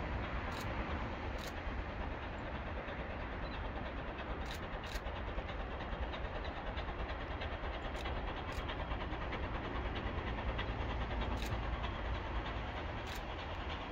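Distant steady rumble of the Bulleid West Country class steam locomotive 'City of Wells' working toward the listener along the line, with no distinct exhaust beat yet.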